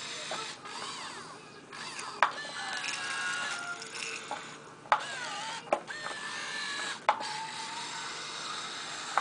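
Electric motors of a Kyosho remote-control Komatsu excavator model whining as the boom, arm and bucket move. The motors run in several separate bursts, each set off by a sharp click, with a steady whine that shifts in pitch from one run to the next.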